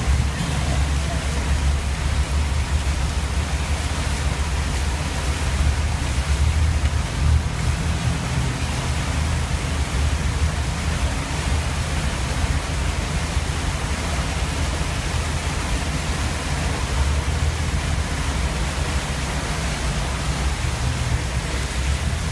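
Vehicle driving through tall grass, with a steady low rumble under an even hiss.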